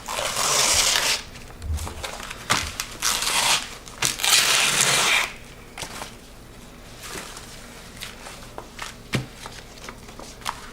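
Dry rustling and crinkling in three bursts, each about a second long, within the first five seconds, followed by scattered light clicks and taps.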